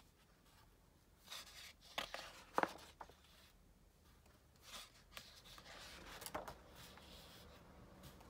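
Printed paper sheets being turned over and slid off a stack: a handful of soft rustles and swishes, the sharpest about two and a half seconds in.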